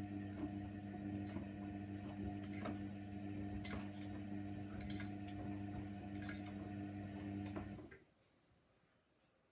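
Hoover Nextra 6 washing machine running mid-wash: a steady motor hum with irregular light clicks, cutting out suddenly about eight seconds in.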